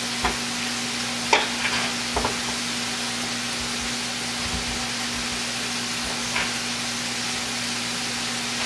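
Beef burger patties sizzling steadily as they fry in a pan, with a low steady hum underneath and a few light knocks on a wooden cutting board.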